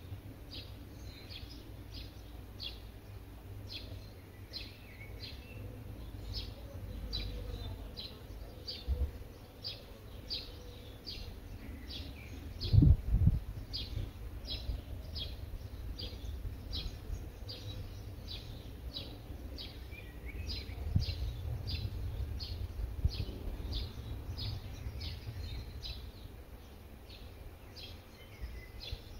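Garden ambience: a steady series of short high chirps, just under two a second, over a low rumble. A louder thump comes about 13 seconds in.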